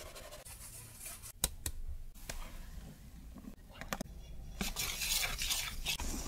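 Utensils handled against a stainless steel mixing bowl and flour sieve, giving a few sharp metallic clicks. About four and a half seconds in, a hand whisk starts mixing the egg mixture into the flour, scraping quickly and steadily against the steel bowl.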